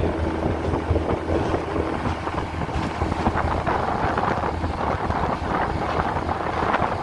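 Boat motor running with a steady low hum, under wind noise on the microphone.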